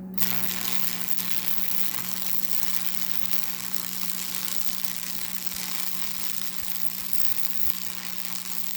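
Stick welding: the arc runs as one continuous bead, a steady crackling sizzle over a low, steady electrical hum, starting sharply at the strike.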